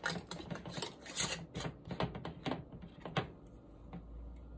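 Metal Denali canning lid being set onto the rim of a glass pint jar and handled with a screw ring: a quick run of small metal-on-glass clicks and taps, thinning out about three seconds in.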